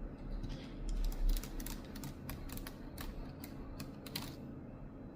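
Typing on a computer keyboard with long natural fingernails: a quick, irregular run of clicks from the keys and nail tips, starting about a second in and stopping near the end.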